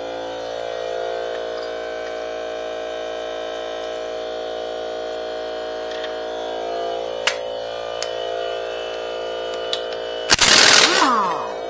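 A steady hum with a few light clicks, then, about ten seconds in, a short loud burst from a pneumatic impact wrench on a lug nut, its pitch falling as it spins down.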